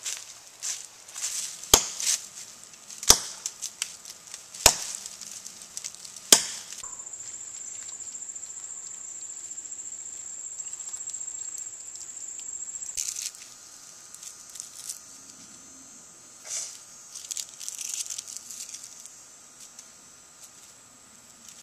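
Footsteps crunching through dry forest-floor leaves, with four sharp twig snaps about one and a half seconds apart in the first six seconds. Then a steady, high insect buzz takes over for about six seconds, followed by faint scattered rustling.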